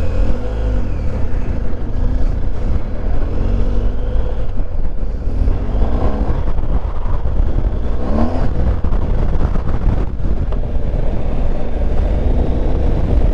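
Wind buffeting the microphone with a strong low rumble, over the steady whine of a quadcopter drone's propellers, which rises and falls in pitch a few times as the drone holds against the wind.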